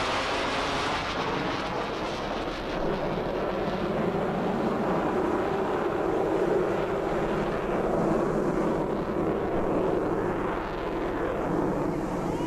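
Jet noise from an F/A-18 Hornet's two engines as it flies away overhead: a steady, continuous rush that turns duller about a second in, as the jet recedes.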